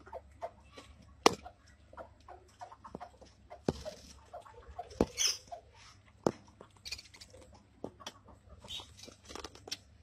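Budgerigars in a clay nest pot giving short high squeaks, mixed with scattered sharp clicks and knocks from the pot being handled.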